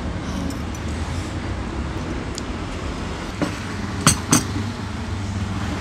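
Tableware clinking on a table: three sharp knocks of a ceramic mug and metal cutlery a little past halfway, the last two close together, over a steady low rumble.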